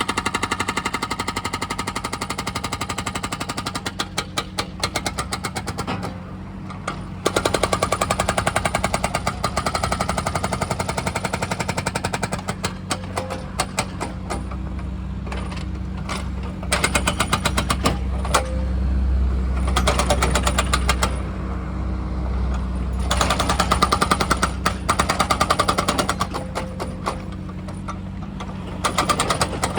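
Excavator-mounted hydraulic breaker hammering in several runs of rapid blows a few seconds long with short pauses between, over the steady hum of the excavator's engine.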